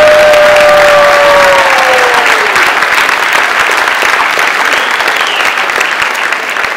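Audience applauding steadily. One person's long held cheer rides over it at the start and slides down in pitch, ending about two and a half seconds in.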